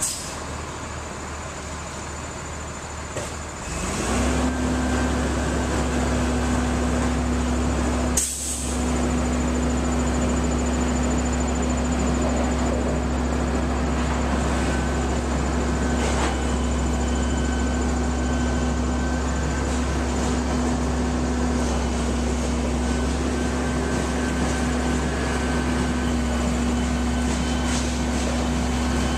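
Steady low engine hum with a deep rumble, as from a motor vehicle running in place. It grows louder about four seconds in and dips briefly near eight seconds.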